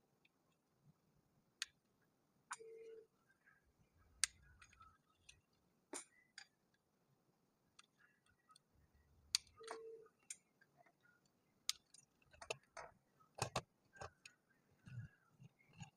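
Small plastic building bricks clicking and tapping as pieces are handled and pressed together: scattered sharp clicks of varying strength, busier near the end. A brief low hum sounds twice, about seven seconds apart.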